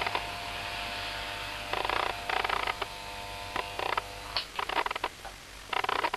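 Electric hair clippers running with a steady hum while cutting hair in short passes; the motor stops about two-thirds of the way through.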